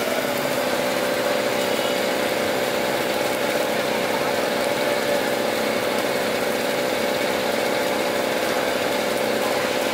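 A steady mechanical hum with a constant mid-pitched drone, like a small engine or motor running at idle.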